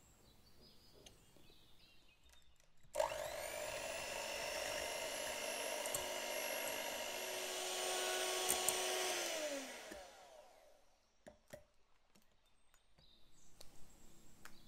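Electric hand mixer whipping cream: the motor spins up about three seconds in, runs steadily for about seven seconds, then winds down. A few sharp clicks follow.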